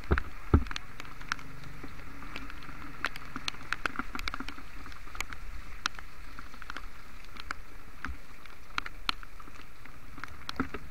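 Heavy rain: a steady hiss with many drops ticking irregularly close to the microphone. Two dull thumps about half a second apart at the start.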